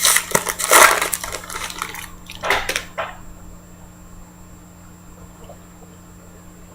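Thick trading cards and their packaging handled, rustling and clicking for about three seconds, then stopping, leaving a low steady hum.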